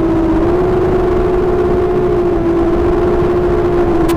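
Brushless motors and propellers of the OFM Swift TR260 tilt-rotor racing quadcopter, on a 4S battery, in fast low flight: a loud steady whine holding near one pitch and dipping slightly now and then, over a rough rushing noise.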